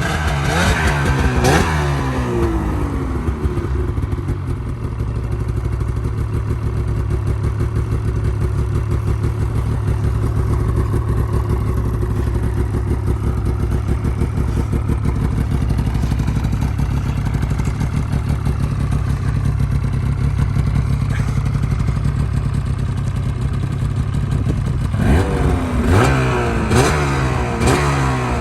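2001 Ski-Doo MXZ 600's two-stroke twin engine running just after a cold start. It revs briefly at first, settles into a steady idle, then takes several quick throttle blips near the end.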